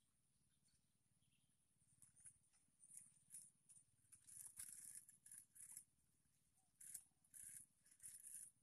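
Fishing rod, spinning reel and line being worked to free a line snagged in a bush: a run of short, faint, scratchy sounds starting about two seconds in.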